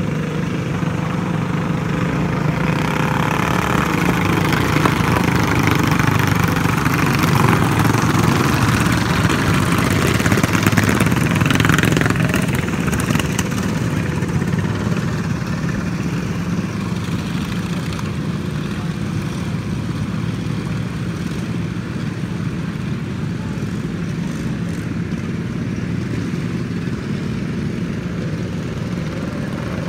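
Racing lawn mower engines running flat out as a pack circles a dirt oval. The engine noise grows louder over the first dozen seconds as the mowers pass close, then eases off to a steady, more distant drone.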